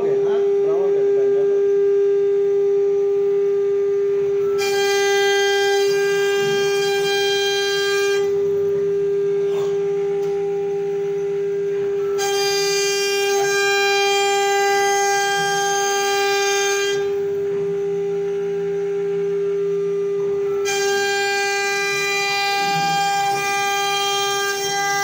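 Twin-head CNC wood router running and cutting through a wood panel: a steady, high spindle whine. Several times, for a few seconds at a stretch, a brighter, harsher edge joins the whine and then falls away.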